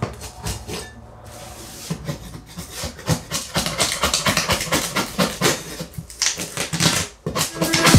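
Hand scraping at a wall beside a door frame with a metal scraper: quick, repeated scratchy strokes that grow busier after about two seconds, with a short break near the end.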